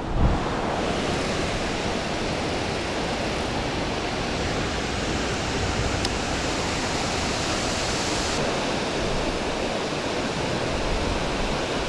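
Waterfall rushing steadily, an even wash of falling water, with a brief low thump just after the start.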